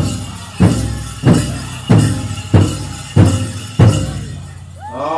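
Powwow drum struck hard in unison by a drum group, seven heavy beats a little over half a second apart, with bells jingling between them. Near the end a singer's high voice comes in, gliding up and holding a line.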